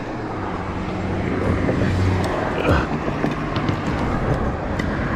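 Road traffic: a motor vehicle going by with a steady low engine drone over a rushing noise. A short knock comes a little past halfway.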